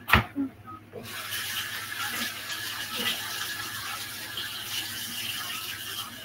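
Partly frozen beef strips sizzling in a hot skillet: a steady hiss that starts about a second in, just after a sharp knock.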